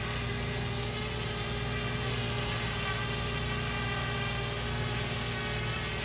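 Parrot Bebop 2 quadcopter's motors and propellers running steadily: an even hum with a whine of several fixed pitches and no rise or fall.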